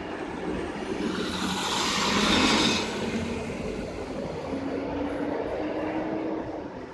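Road traffic heard from inside a car stopped at an intersection: a vehicle passes, swelling to its loudest about two and a half seconds in and then fading, over a steady low engine hum.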